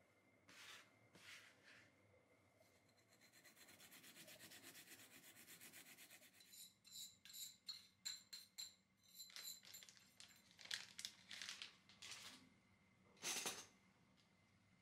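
Ginger and garlic being grated on a small metal hand grater: a fast, even rasping for a few seconds, then irregular scrapes with a faint metallic ring as the pulp is scraped off the grater with a spoon. A short, louder rustle near the end.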